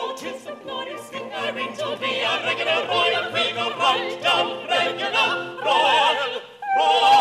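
Orchestra playing a quick dance passage in a comic-opera number. About six seconds in, operatic voices come in with wavering held notes, and near the end a loud held note begins.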